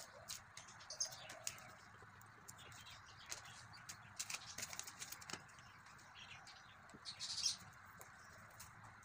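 Gift-wrap paper rustling and crinkling as it is handled and folded around a cardboard box, with small taps and clicks and a louder rustle about seven seconds in.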